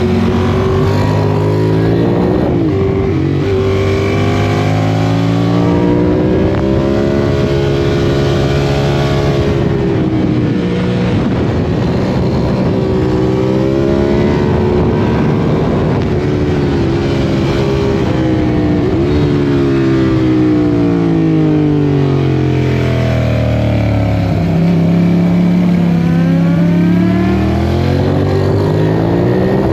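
A vehicle engine revving up and down through its exhaust again and again, its pitch rising and falling over a few seconds each time.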